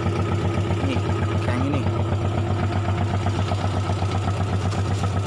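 Fishing boat's engine idling with a steady, rhythmic throb.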